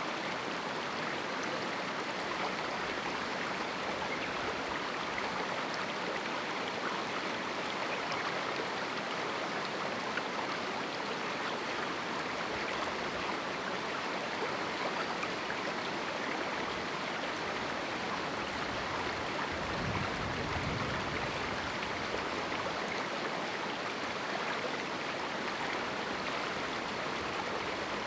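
Small canyon river flowing: a steady, even rush of water, with a slightly deeper surge about twenty seconds in.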